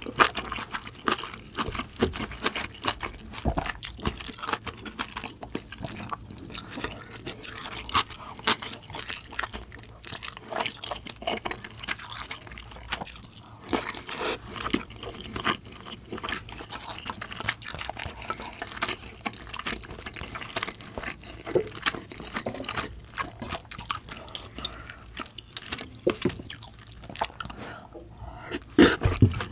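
Close-miked chewing of kimchi stew: a steady run of small wet clicks and crunches from the mouth. A louder spell of sounds comes near the end as a big spoonful of stewed kimchi goes in.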